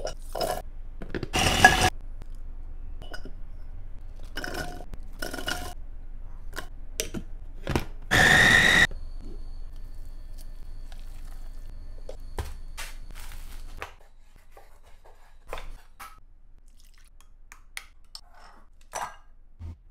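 Clikon electric food chopper's motor running in brief pulses: a short burst about a second and a half in and a steady whine of about a second near the eight-second mark. In between and after come clicks, knocks and scraping of utensils against glass and ceramic bowls.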